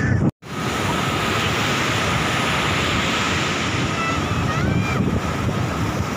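Wind buffeting the microphone over the steady wash of sea surf breaking on a rocky beach. The sound drops out for a split second just after the start, then the wind and surf resume.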